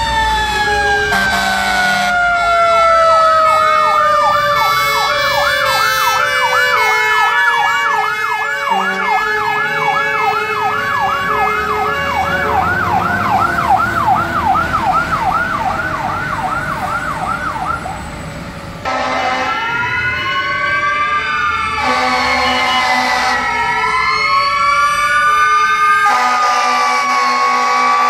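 Fire truck sirens and air horns. A mechanical siren slowly winds down in pitch while an electronic siren yelps rapidly, about two to three sweeps a second, and air horns blast in short bursts. After a cut, a siren wails slowly up and down with low air-horn blasts near the end.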